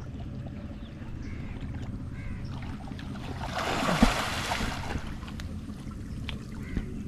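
Water sloshing and stirring as men wade through a muddy, waist-to-chest-deep channel. A big splash of water is thrown up beside one of the waders about three and a half seconds in, and it is loudest at about four seconds.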